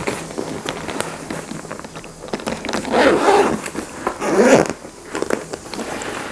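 Zipper of a DJI Mavic Air 2 Fly More shoulder bag being pulled open in several strokes, the loudest about three seconds in and again about four and a half seconds in.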